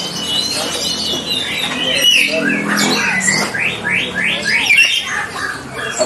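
Several caged songbirds chirping and calling over one another. About three and a half seconds in, one bird gives a quick run of about six repeated sweeping notes.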